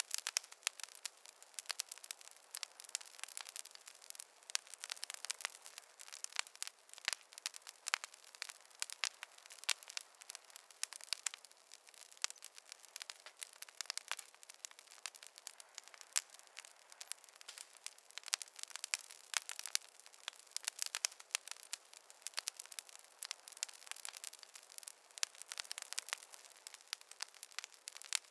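Campfire crackling: a dense, irregular stream of sharp pops and snaps.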